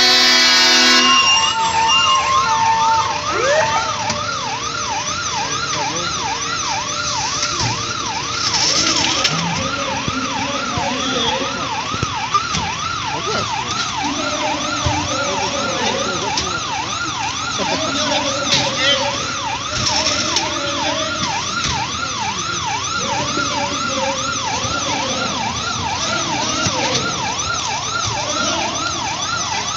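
Emergency-vehicle siren in a fast yelp, its pitch sweeping rapidly up and down a few times a second without a break, over crowd voices. A steady multi-note tone cuts off about a second in, just as the yelp takes over.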